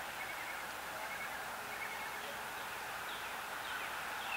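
Quiet steady background hiss with faint bird chirps now and then.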